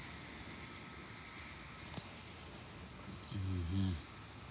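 Crickets trilling in a steady chorus at one high pitch, with a brief hummed voice about three and a half seconds in.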